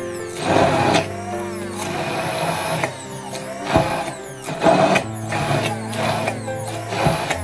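Immersion (stick) blender running, its blade pureeing green beans in a tall plastic beaker, the sound swelling and dipping about once a second as the blade works through the beans.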